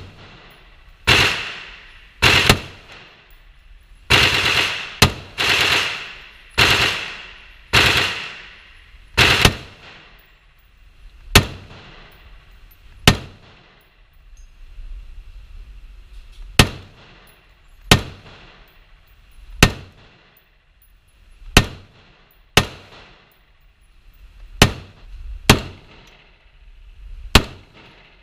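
Rifle fired one shot at a time, about eighteen shots spaced one to two seconds apart, each echoing off the steel booth and range walls. The shots in the first ten seconds ring on longer than the sharper, shorter ones later.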